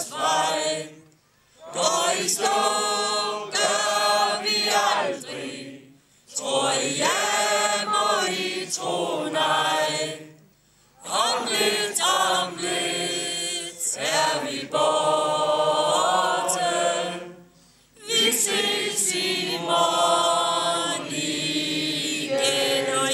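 A crowd of people singing a Danish song together, line by line. There is a short break between lines every four to six seconds.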